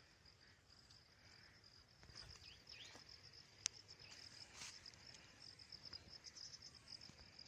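Faint, steady high-pitched trill of an insect chorus in grassy scrub after rain, with a sharp click about halfway through.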